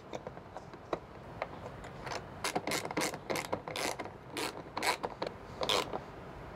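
Ratcheting driver with a Torx bit clicking in short runs as a bracket bolt is screwed in, the clicks coming thicker and louder from about two seconds in.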